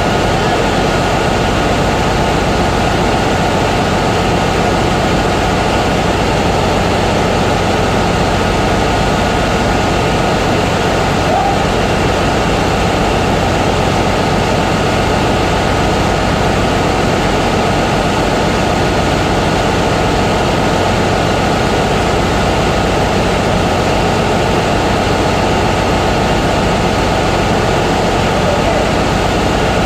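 Steady, loud engine-room machinery drone with a few constant whining tones, unchanging throughout.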